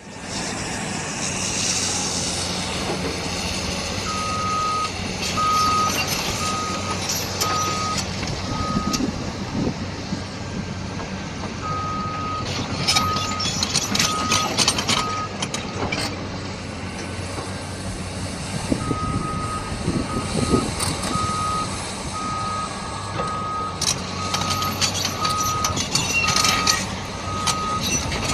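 Caterpillar tracked excavator running, its travel alarm beeping about once every 0.8 seconds in three runs while the machine moves on its tracks. Under the beeps the diesel engine drones steadily, and the steel tracks rattle and clank in bursts.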